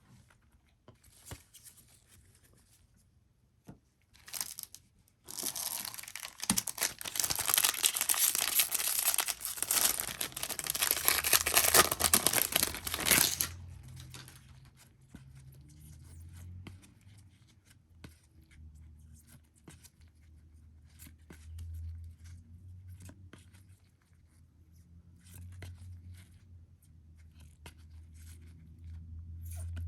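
Plastic trading-card packaging being torn and crinkled open for about eight seconds, then faint clicks of cards and packaging being handled.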